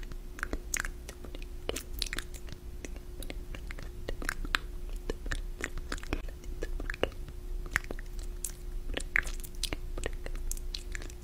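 Close-miked ASMR mouth sounds: irregular wet clicks and smacks of lips and tongue, a few a second, over a faint steady hum.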